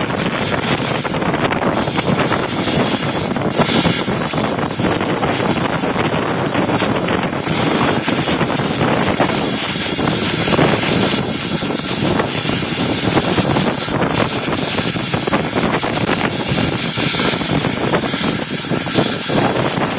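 S.P.&S. 700, a 4-8-4 steam locomotive, working under way and heard from inside its cab as a loud, steady roar.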